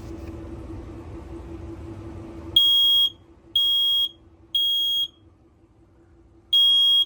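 Home smoke alarm sounding its shrill high-pitched beeps in the three-beep temporal pattern: three beeps about a second apart, a short pause, then the next group begins. This is the alarm's smoke-alarm signal. Before the beeps start, about two and a half seconds in, there is a steady low hum.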